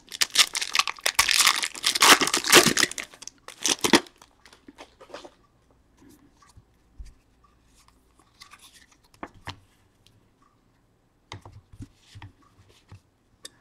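A trading-card pack wrapper is torn open and crinkled for about four seconds. Then come faint, scattered rustles and ticks as the cards are handled.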